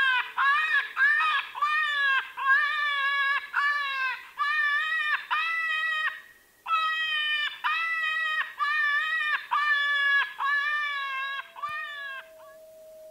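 Predator call playing a run of short, wailing animal distress cries, about two a second, with a brief break about six seconds in. Near the end a long, falling tone starts.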